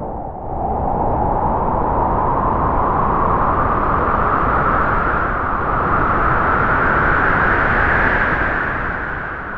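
A single gust of wind: a rushing hiss with a whistling tone that slowly rises in pitch as it swells, then fades away near the end.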